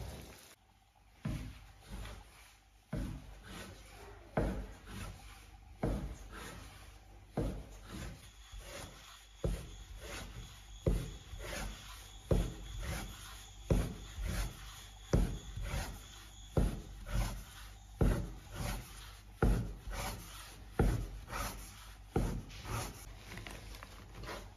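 Steel cleaver chopping layered noodle dough on a wooden cutting board. The blade knocks the board in a steady rhythm of a little over one stroke a second, each knock with a short scrape.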